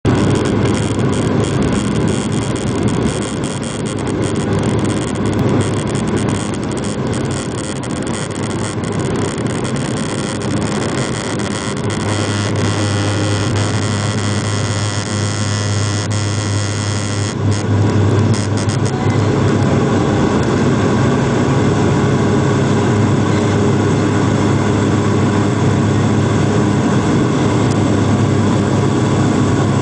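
Inside an airliner cabin on takeoff: engines at takeoff power over the rumble and rattle of the wheels on the runway. About two-thirds of the way through, the rough rumble gives way to a steadier, even engine sound as the plane leaves the ground.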